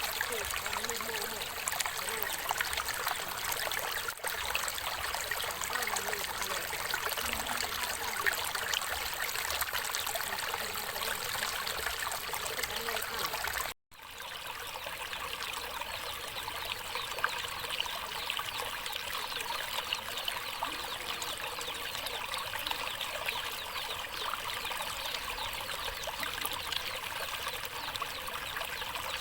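Stream water running steadily over rocks, a continuous trickling rush. About 14 seconds in it cuts out for a split second and resumes with a slightly different tone, an edit to another stretch of the flow.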